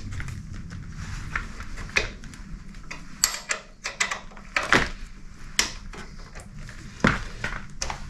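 Metal hand tools clicking and knocking on a motorcycle's rear shock absorber mounting bolts as an Allen key and a spanner work them loose, several separate clinks over a few seconds.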